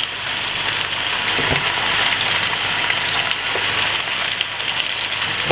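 Jerk-marinated beef steak frying in hot oil in a non-stick pot: a steady sizzle with fine crackling.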